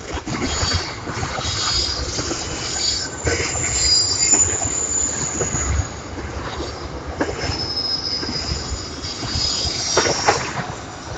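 Train rolling past, its wheels squealing on and off in high tones over the steady rumble, with scattered clicks and knocks from the wheels on the rails.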